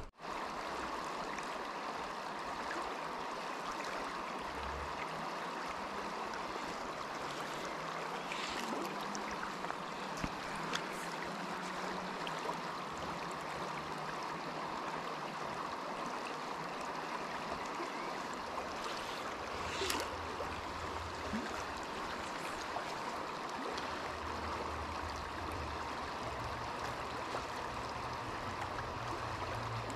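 River current flowing steadily, heard close to the water, with a few faint clicks.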